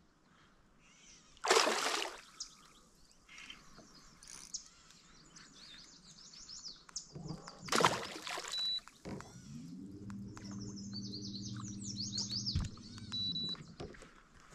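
Songbirds calling over and over in short chirping phrases, broken twice by a short, loud rush of noise. Partway through, a steady low hum starts and then cuts off suddenly.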